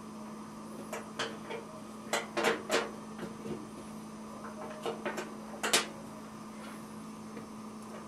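Several light clicks and taps as multimeter test probes are handled and set against the metal terminals of a dryer thermal fuse, over a steady low hum.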